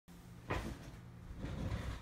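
A single thud about half a second in, followed by softer knocking and rustling handling sounds near the end, over a steady low electrical hum.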